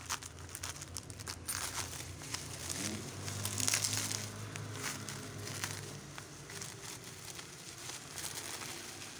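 Plastic bubble wrap crinkling and crackling as hands unwrap it, loudest about four seconds in.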